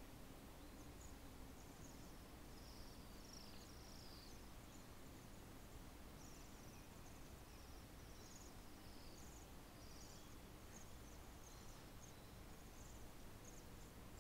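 A flock of waxwings giving faint, high, thin calls: many short notes scattered throughout, over a low steady background hum.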